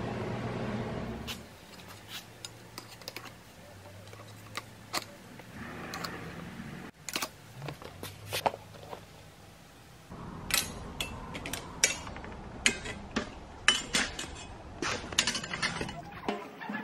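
Stainless steel barbecue tools (spatula, fork and tongs) hanging from steel hooks on a leather apron, clinking and jangling against the hooks and each other in irregular sharp clicks, busier in the second half. A low hum stops about a second in.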